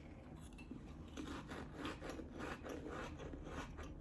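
Chewing a cracker topped with a smoked oyster close to the microphone: a quick run of crunches.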